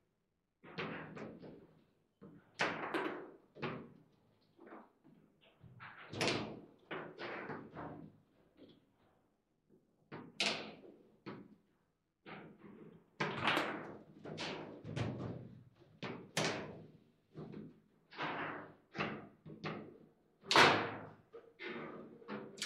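Foosball play: the ball cracking against the players' figures and the table walls, and rods knocking in the table, in irregular clacks and thuds that come thicker in the second half. The loudest, hardest hit comes about two seconds before the end.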